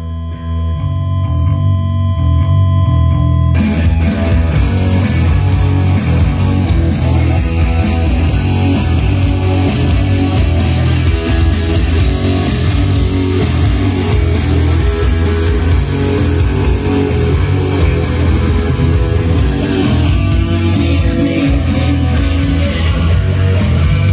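Rock music with guitar and bass playing loudly from JBL 4312 loudspeakers driven by a Sony TA-3650 integrated amplifier. A sparser opening of bass and held tones gives way to the full band about three and a half seconds in.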